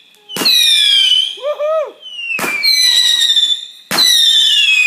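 Whistling firework rockets launching one after another: three in quick succession, each a sharp start followed by a loud, high whistle that slides down in pitch as it climbs.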